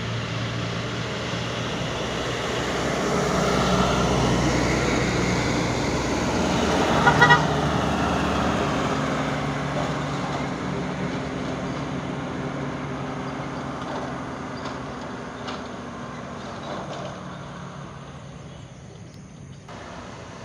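Heavy trucks' diesel engines passing on a winding downhill road, the sound building and then fading slowly as they move away, with a short horn blast about seven seconds in that is the loudest moment.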